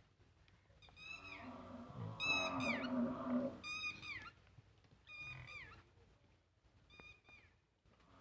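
Animal calls: a high-pitched call repeated about five times, each one sliding down in pitch, with a lower, longer call underneath between about one and three and a half seconds in.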